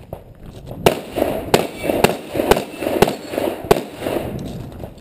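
Six rifle shots fired at a steady pace, one every half to three-quarters of a second, starting about a second in, each followed by a short echo.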